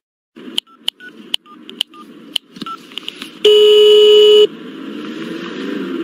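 A telephone number keyed in as a quick string of about ten button clicks, some with short beeps. Then a steady telephone ringback tone sounds for about a second as the call rings through.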